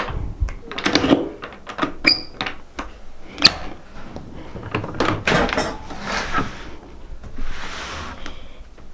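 A key being worked into a doorknob lock and turned, with metal clicks and a short jingle of keys about two seconds in, then a door being opened and handled: a string of knocks and clicks with brief rustling.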